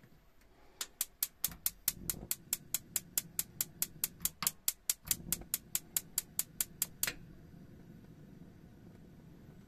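Gas hob's electric spark igniter clicking rapidly and evenly, about five clicks a second for some six seconds, then stopping. About two seconds in the burner catches, and the gas flame burns with a low, steady rush.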